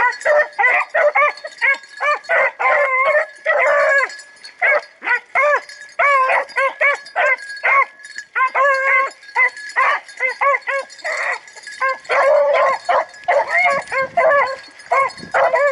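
A pack of rabbit hounds barking and baying, several dogs at once in quick overlapping barks, working rabbit scent in the brush. A faint steady high tone runs beneath the barking.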